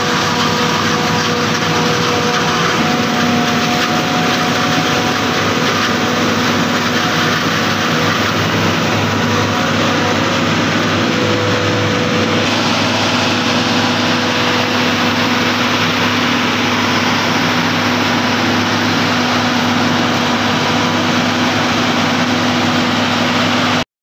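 Claas Jaguar 870 forage harvester running steadily under load while chopping maize, its engine and cutting and chopping gear making a loud, even machine noise with several steady tones. The sound shifts about halfway through, where it is heard from inside the cab, and cuts off abruptly near the end.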